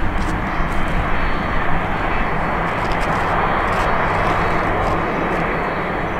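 Jet engines of a twin-engine Boeing 767 airliner rolling along the runway: a loud, steady rushing noise that swells about three to four seconds in and eases off near the end.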